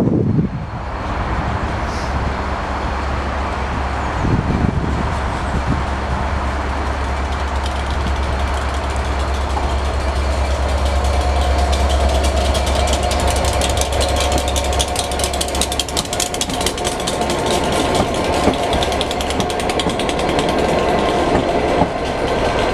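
Pair of Class 67 diesel locomotives running light engine, their two-stroke V12 engines giving a steady low rumble as they approach and pass. A steady whine comes in about halfway through and lasts almost to the end, while the rumble fades after about 16 seconds.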